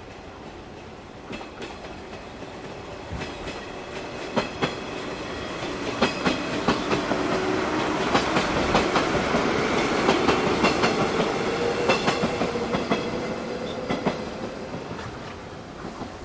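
Electric train running over station trackwork, wheels clacking irregularly over rail joints and points. The rumble and clacks grow louder toward the middle and ease off near the end.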